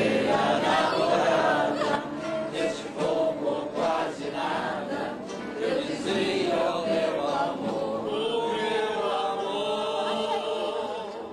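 A group of people singing a seresta, a Brazilian serenade song, together in chorus.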